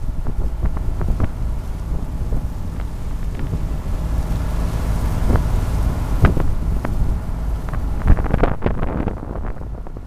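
Wind buffeting the microphone over the low steady drone of a small cruise boat's engine and the rush of its wake along the hull while it is under way.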